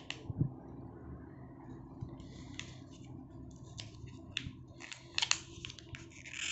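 Small clicks and crinkles of a coiled USB Type-C charging cable being handled and unwrapped by hand, with a soft thump about half a second in; the clicks come faster near the end.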